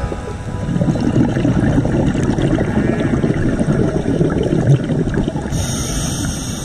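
Underwater ambient noise over a coral reef: a dense, crackling wash, with a higher hiss joining about five and a half seconds in.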